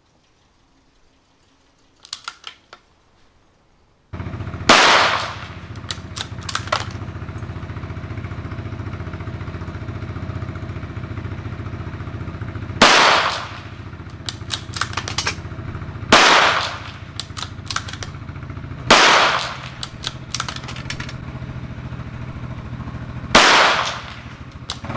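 Five shots from a CZ 455 bolt-action rimfire rifle in .22 WMR firing RWS full-metal-jacket rounds, spaced about 3 to 8 seconds apart, each followed by a quick run of metallic clicks as the bolt is worked. A steady low hum starts about four seconds in and runs under the shots.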